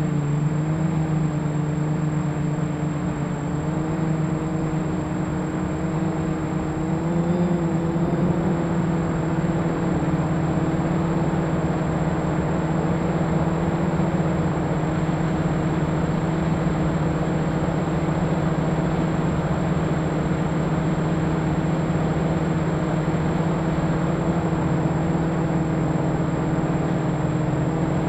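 Quadcopter's electric motors and propellers whirring steadily, heard from the camera mounted on the craft, with a brief rise in pitch about seven to eight seconds in.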